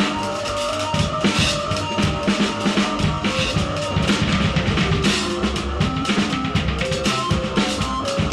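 Live noise music from a Casio keyboard and drum kit duo: busy, dense drumming with bass drum and snare, under short held electronic keyboard notes that step from pitch to pitch.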